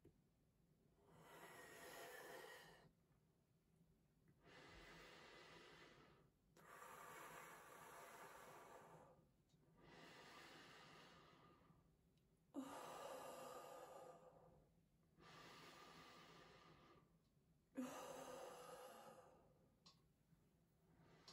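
Bubblegum bubble being inflated: faint breaths blown into the gum in about seven long pushes of a second or two each, with short pauses between them. Two of the pushes begin with a small click.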